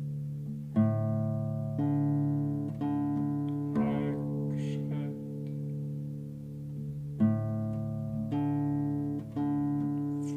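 Classical acoustic guitar played slowly: single plucked notes about a second apart, each left to ring long over sustained lower strings, in a short phrase that comes twice with a pause between.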